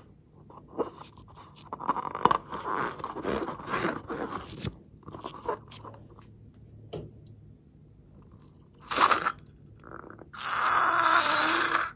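Rubber balloon crackling and squeaking as it is handled and squeezed, then the red liquid inside sputtering out of its neck onto the slime: a short squirt about nine seconds in and a longer, loud spluttering stream near the end that cuts off suddenly.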